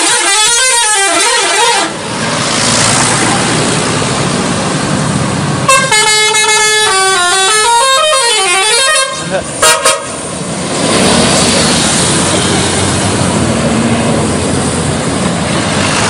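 Indonesian 'telolet' musical bus horns. A multi-note horn tune plays for the first two seconds, a longer tune of stepped notes runs from about six to nine seconds, then come two short toots, with a steady rushing noise of the passing buses between and after them.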